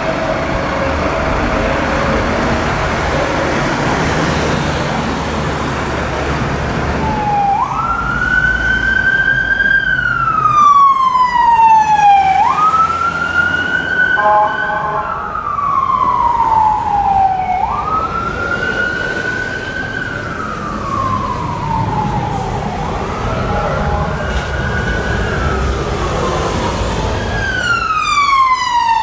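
Street traffic, then from about seven seconds in an approaching ambulance rapid response car's siren wailing: each cycle jumps up quickly and sweeps slowly down, about every five seconds, growing louder near the end.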